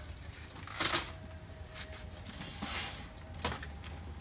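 Plastic clicks, knocks and scrapes from a laser printer being handled and tipped up. There is a short scrape about a second in, a longer one around the third second, and a sharp click, the loudest, about three and a half seconds in.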